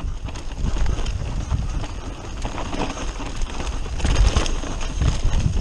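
Mountain bike descending a rough dirt forest trail at speed: steady tyre and wind rumble with irregular knocks and rattles as the bike goes over roots and stones.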